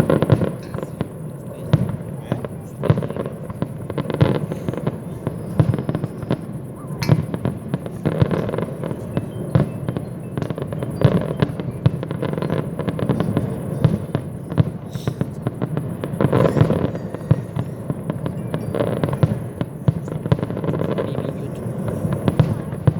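Aerial fireworks display: a rapid, irregular string of shell bursts, bangs and crackling, with the booms and their echoes running into one another.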